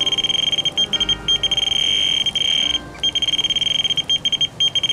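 Electronic carp bite alarm sounding a run: a high-pitched beep that stutters into a near-continuous tone, with one short break about three seconds in. This is the sign of a fish taking line.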